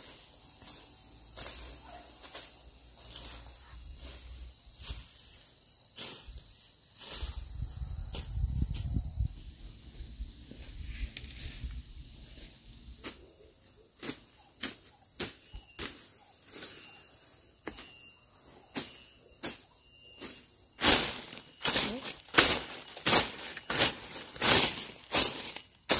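Insects calling in a steady high-pitched drone, with scattered light ticks and rustles. About three-quarters of the way through, a run of loud sharp knocks begins, roughly two a second.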